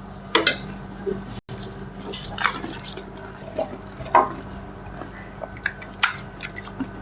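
Scattered light clinks and taps of plates and dishes while panipuri is being eaten, with a few louder knocks spaced a second or two apart.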